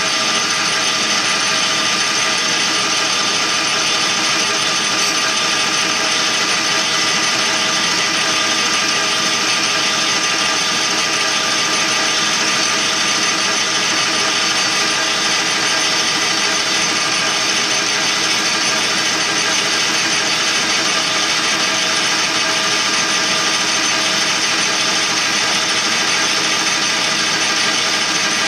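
Metal lathe running, its cutting tool turning down the outside of a metal tube: a steady machine whine with several constant tones over the noise of the cut.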